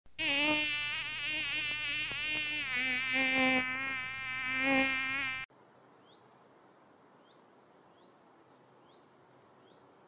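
A flying insect buzzes close by, with a wavering pitch. The buzz cuts off abruptly about five seconds in, leaving a faint background with soft chirps about once a second.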